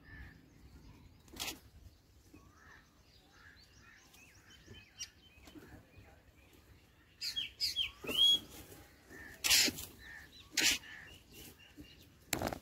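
Black drongos calling at the nest: faint chirps at first, then from about seven seconds in a run of loud, harsh calls, several in quick succession, with short clear whistled notes between them.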